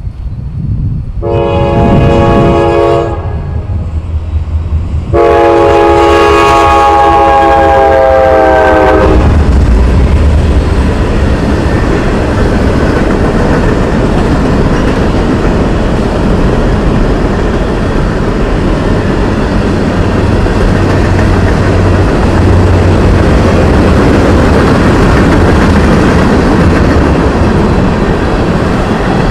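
Diesel freight locomotive's air horn sounding a chord in two blasts, a short one and then a long one of about four seconds. After the horn stops, the locomotive and a long string of freight cars roll steadily past on the rails, loud and unbroken.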